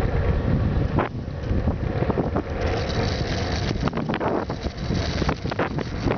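Wind buffeting the microphone of a vehicle moving at highway speed, rumbling and crackling in uneven gusts over the road and engine noise.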